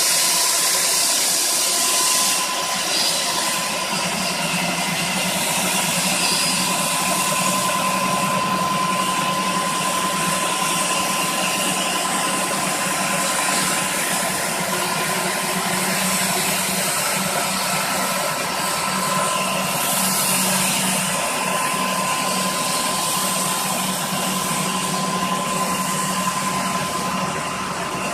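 Concrete floor grinding machine running steadily: a motor hum under a constant high whine and a hiss of abrasion.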